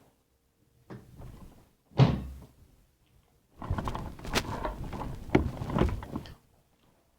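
A sharp thump about two seconds in, then about three seconds of dense crackling and clicking handling noise.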